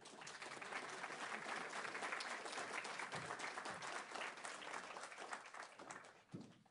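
Audience applauding for a prize winner, a dense clatter of claps that thins toward the end and then cuts off suddenly.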